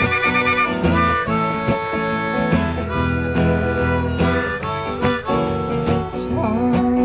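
Harmonica played over an acoustic guitar, a live folk-blues instrumental passage; near the end the harmonica bends a note so that it wavers in pitch.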